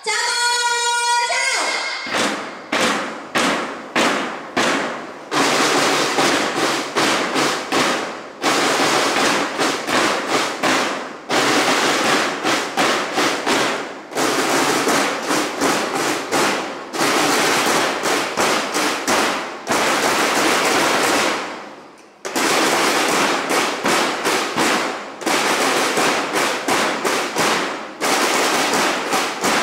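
Firecrackers going off in dense, rapid strings of sharp bangs, breaking off briefly about every three seconds.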